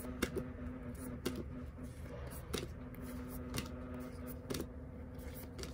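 Thick photo postcards being flipped and laid down one after another, each giving a light papery tap, about one a second. A steady low hum runs underneath.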